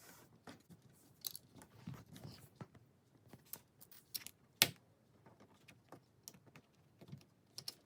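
Small plastic LEGO pieces being handled and pressed together: scattered light clicks and rustles, with one sharp click about four and a half seconds in.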